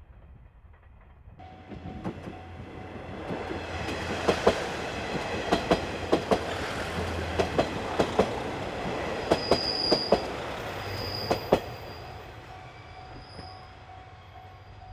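JR East KiHa 110 series diesel railcars passing close by. Their wheels click in pairs over the rail joints, with a few short high-pitched wheel squeals. The sound then fades as the train moves away.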